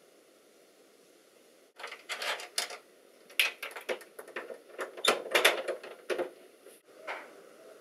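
A metal door security chain and its slide plate rattling and clinking in an uneven run of sharp clicks. It starts about two seconds in, is busiest around the middle, and stops near the end.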